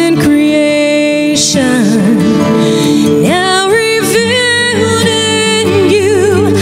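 A woman singing a slow solo into a microphone, holding long notes with wide vibrato and sliding between pitches, over instrumental accompaniment.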